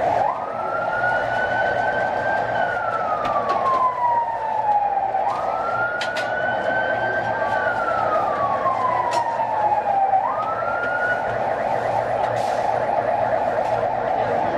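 A siren wailing over a steady hiss. Its tone jumps up quickly, climbs slowly, then falls away over a few seconds. It goes through this twice and starts a third time, then cuts off about eleven seconds in. A few sharp clicks sound now and then.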